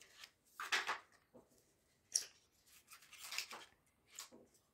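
Cardboard smartphone packaging being handled: a white inner box and a paper sleeve sliding and rustling in a few short scrapes, with one sharp tap about two seconds in.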